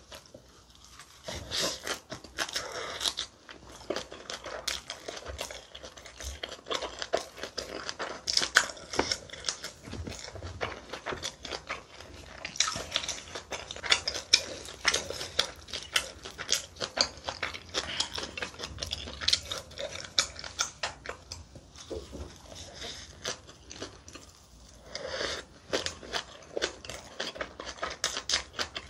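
Close-miked chewing of a mouthful of fresh leaf wrap and rice, with crisp crunching in quick, irregular clicks. The chewing eases off briefly a little past two-thirds of the way through, then comes back louder.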